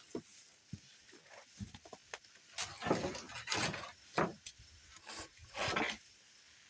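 Wood being handled: a few sharp knocks and several rough scrapes, as of a board being slid out and moved, the loudest about three seconds in.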